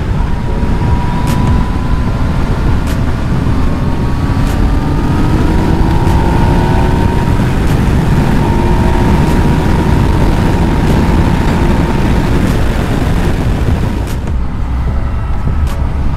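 Yamaha MT-09's inline-three engine running at road speed, with wind noise on the microphone; the engine note climbs slowly in the first half, and the rush eases a little near the end.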